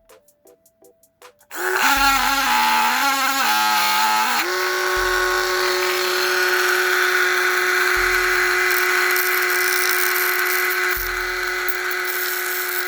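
Small electric power tool motor whining at high speed, starting about a second and a half in. Its pitch wavers for a few seconds, then holds steady and higher until it cuts off near the end.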